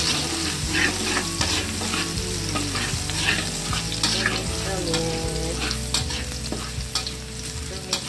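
Sliced garlic sizzling in hot oil in a wok, with a metal spatula scraping and clicking against the pan as it is stirred. The garlic has just begun to turn colour and smell fragrant.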